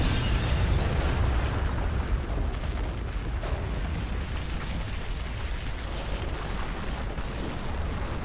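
Explosion sound effect: a deep, continuous rumble that is loudest at first and slowly dies down over several seconds.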